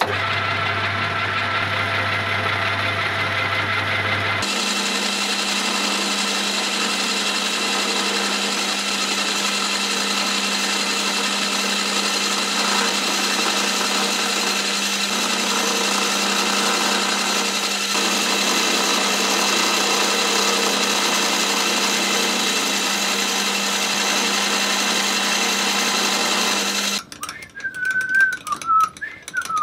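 Bench milling machine running steadily while a spiral end mill cuts a slot into a rusty steel wrench part. The pitch of its hum changes about four and a half seconds in, and the machine stops about three seconds before the end, leaving a few light clicks.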